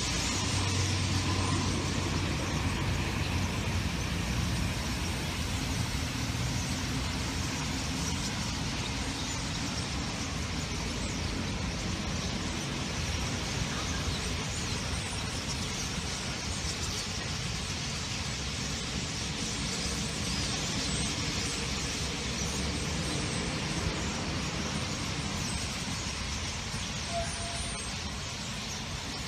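Steady hum of city traffic, with faint high chirps from a large flock of starlings.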